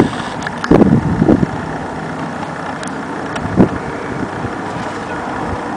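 Wind buffeting the microphone: a steady rushing, with louder gusts about a second in and a brief one past three and a half seconds.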